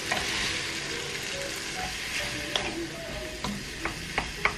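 Boiled mung beans tipped into a hot wok of sautéing garlic, ginger, tomato and onion, sizzling loudest just after they go in and then easing. In the second half a wooden spatula stirs them, with several sharp taps against the pan.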